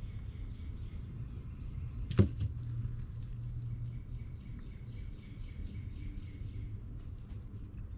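Engine parts handled at a workbench while a piston is fitted onto a connecting rod: one sharp metallic click about two seconds in, then a few faint clicks, over a steady low shop hum.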